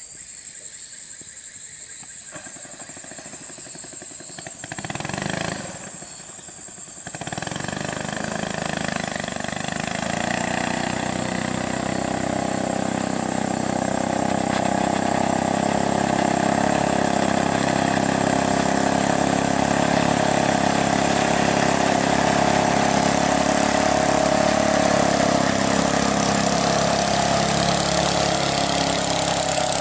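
Small single-cylinder longtail (ketinting) boat engine running under way, faint at first and growing steadily louder as the boat comes close, then holding a steady loud drone.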